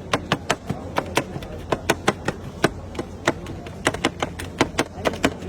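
Rapid, uneven sharp taps and clacks of a cook's utensil striking cookware, several a second, over a steady low hum.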